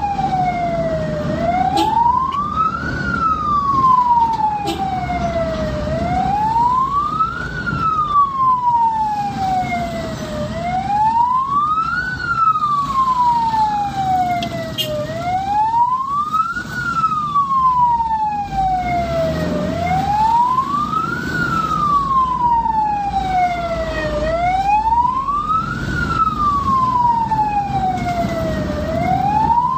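Ambulance siren on a slow wail: each sweep rises quickly, then falls away more slowly, about once every four and a half seconds. Engine and road noise run underneath.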